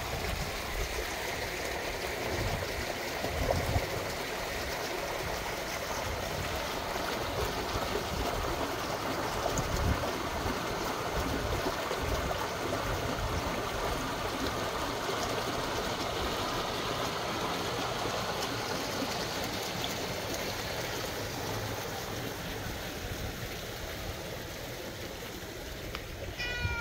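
Garden-pond fountain pump churning the water: a steady rush of splashing, gurgling water.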